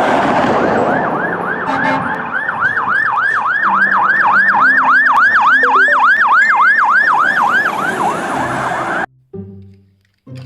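Toy fire engine's electronic siren: a fast yelp of about four pitch sweeps a second over a hiss. It cuts off suddenly near the end.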